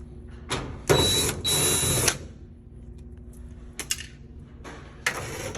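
Power drill or driver running in two short bursts with a high whine, as if backing out screws, with a few light clicks between and the motor starting again near the end.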